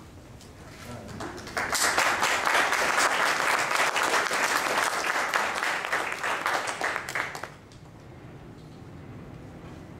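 Audience applauding, starting to swell about a second and a half in and dying away sharply about seven and a half seconds in.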